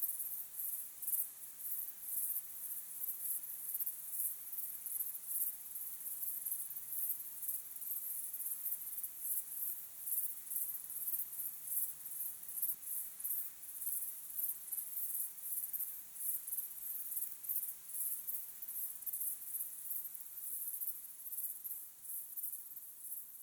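Crickets chirping in a dense, steady chorus of short high-pitched pulses repeating several times a second.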